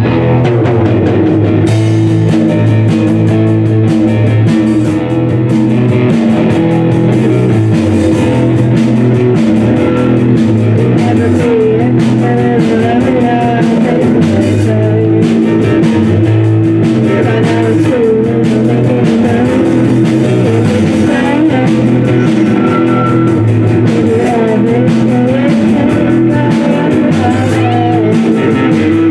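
Rock band playing live: guitar over bass, with the drum kit and cymbals coming in about two seconds in.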